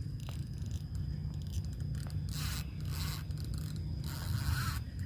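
Fishing reel's drag giving line in short zipping bursts, three in the second half, as a hooked carp runs. A low wind rumble lies underneath.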